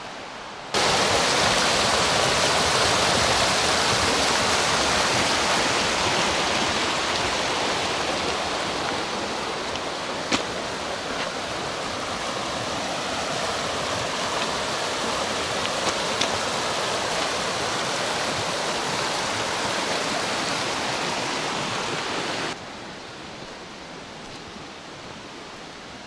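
Steady rush of water. It cuts in sharply about a second in and stops abruptly a few seconds before the end.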